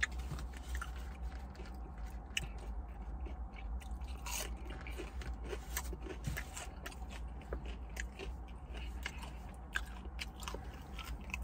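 A person chewing a crisp battered onion ring, with irregular small crunches.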